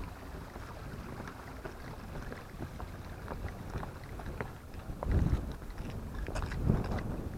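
Wind buffeting an action-camera microphone with a low rumble, swelling louder about five seconds in and again a second and a half later, over light clicks and scuffs of hiking steps on granite.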